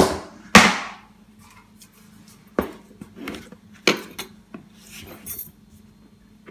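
Sharp knocks and clatter of a hard plastic storage box and its lid being handled on a countertop: two close knocks at the start, the second the loudest, then a few lighter knocks and rustling.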